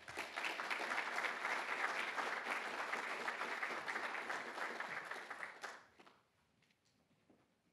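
Audience applauding for about six seconds, then dying away.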